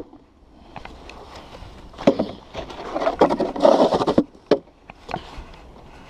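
Snow shovel scraping through snow in a run of strokes, followed by a few sharp knocks.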